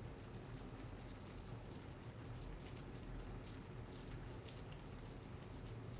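Steady rain falling, with scattered ticks of individual raindrops hitting a surface.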